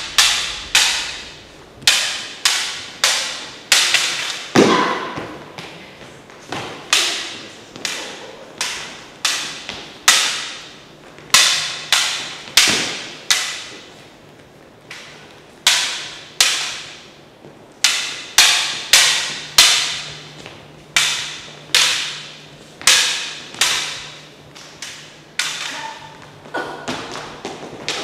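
Lightsaber blades clashing in sparring: sharp clacks of the hard plastic blades of LED lightsabers striking each other, one or two a second in irregular runs, each ringing briefly.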